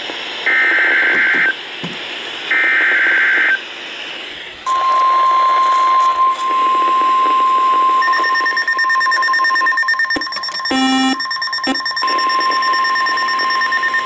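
NOAA Weather Radio alert through a Kaito Voyager Pro weather radio's speaker, starting with two one-second buzzing SAME data bursts, the end of the three-burst EAS header. About a second after the last burst comes the steady 1050 Hz weather alert tone, which holds to the end. A second, higher steady tone joins it about 8 seconds in, and a brief beep sounds near 11 seconds.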